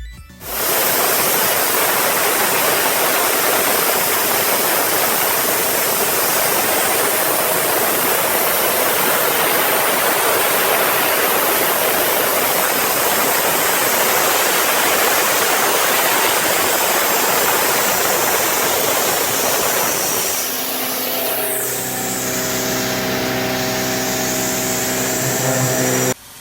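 High-feed face mill with BNMX0603 carbide inserts cutting 39NiCr steel on a milling machine: a loud, steady hiss of the cut. About 20 seconds in the hiss drops away with a falling whistle, leaving the machine's steady humming tones.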